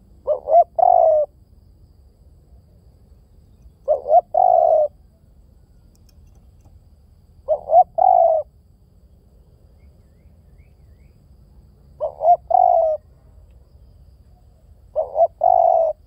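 Spotted dove cooing: five phrases about every four seconds, each two short coos followed by a longer rolling coo.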